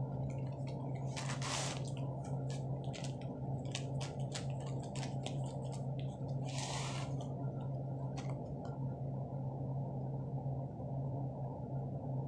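Dry cornstarch being eaten straight from its cardboard box: two short rustling pours, about a second and a half in and again about seven seconds in, and a run of small crisp crunching clicks as the powder is chewed. A steady low hum runs underneath.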